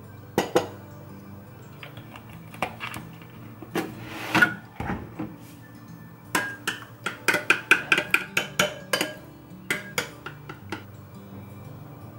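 Metal utensil clinking against a ceramic bowl while beating eggs and cream, with scattered single clinks and a run of quick taps about five a second in the middle. Soft background music underneath.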